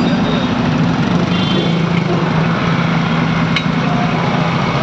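Motorcycle engine running at low speed in street traffic: a steady drone under a constant hiss of traffic noise, with one sharp click about three and a half seconds in.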